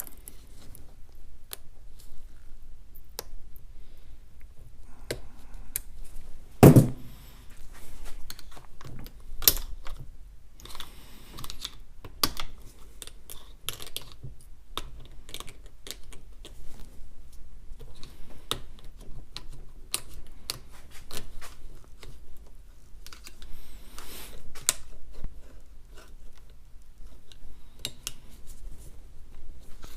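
Irregular metallic clicks and scrapes of hand tools working a snap ring off an NP208 transfer case, with one louder clunk about seven seconds in.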